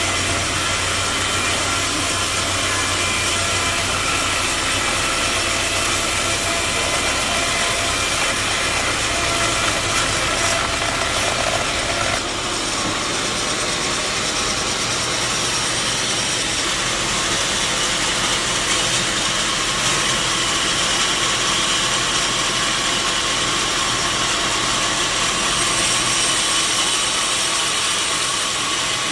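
Sawmill machinery running steadily with a dense mechanical noise; about twelve seconds in the low engine hum drops away while the higher machine noise carries on.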